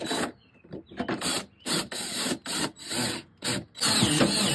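Paintless-dent-repair slot bar levered against the inside of a car's rear quarter panel at the dog leg: about seven rasping scrapes of steel on metal, roughly one and a half a second, pushing the dented sheet metal up. The longest stroke, near the end, carries a squeak.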